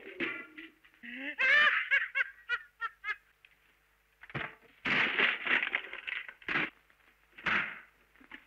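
A voice in short, breaking cries for a couple of seconds. Then a wooden double bass is smashed, with a run of crashes and wood cracking about halfway through and one more crash near the end.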